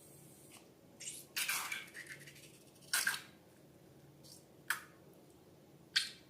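Hands handling balloons and slime: a handful of short separate squishing and scraping strokes, one longer one early on and single sharp ones spaced about a second apart.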